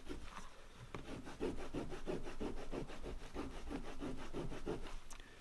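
Microfiber cloth buffing a small brass tag on a plastic tray: quick, even back-and-forth rubbing strokes that stop about five seconds in.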